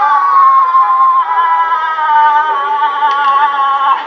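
Singing: a high voice holding long, wavering notes that slowly drift down in pitch.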